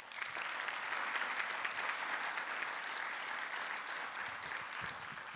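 Audience applauding: dense clapping that starts at once and thins out near the end.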